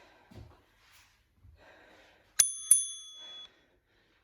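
A bright metallic bell-like chime struck twice, about a third of a second apart, each ding ringing on briefly. Faint breathing and soft landing thuds from squat jumps lie underneath.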